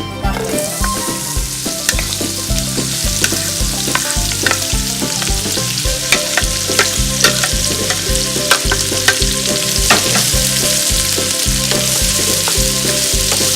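Sliced onions frying in hot fat in a pan: a steady sizzle with scattered clicks of a spoon stirring them.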